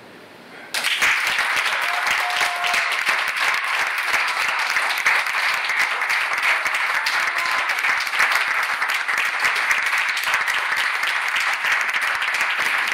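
Audience applauding, starting abruptly about a second in and carrying on steadily.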